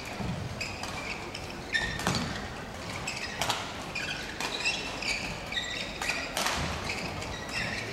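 Badminton hall ambience: scattered sharp knocks and short high squeaks, typical of shuttlecock hits and court-shoe squeaks echoing in a large hall.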